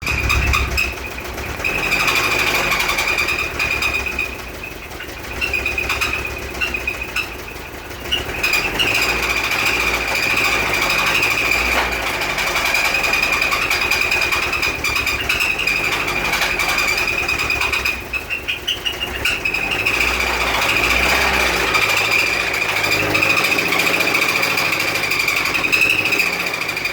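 First-generation Toyota MR2 engine running, first start in over a year, with a rapid knock and a loud high-pitched squeal that does not come from the belt. The squeal wavers slightly and fades briefly a few times, once near a fifth of the way through and again about two-thirds of the way through.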